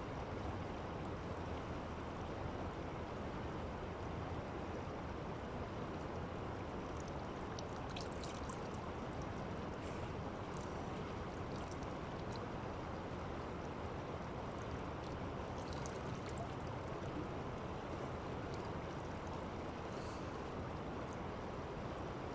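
Steady rush of river water at the shore, with a few faint small splashes scattered through it as hands scoop water.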